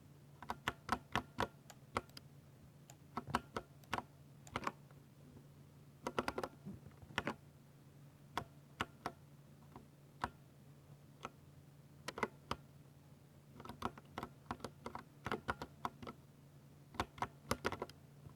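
Typing on a Ducky 60% mechanical keyboard with silver linear switches: quick runs of crisp keystroke clacks broken by short pauses.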